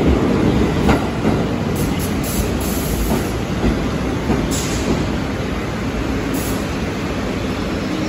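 R62A subway train pulling into a station and slowing: a dense rumble of wheels on rail with a few sharp clicks and faint brief wheel squeals, easing slightly as it comes to a stop.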